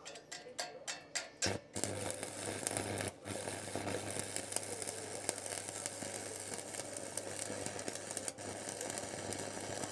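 Stick (arc) welding on a mini tractor's steel cage wheel. The arc crackles and sputters in a run of sharp clicks as it is struck, then settles into a steady frying hiss over a low transformer hum, breaking off briefly twice.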